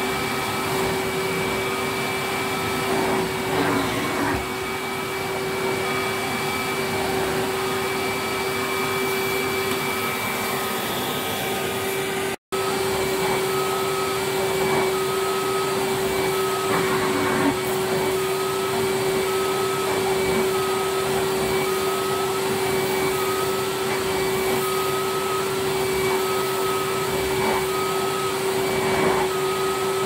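Hoover Commercial tub vacuum cleaners running: a steady motor whine with airflow hiss as the floor tool is pushed over carpet. The sound drops out for an instant about twelve seconds in, then a second Hoover Commercial machine runs with the same steady whine, with a faint pulsing about once a second.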